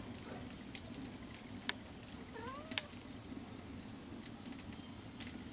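Cherry-wood campfire crackling, with sharp irregular pops from the burning logs.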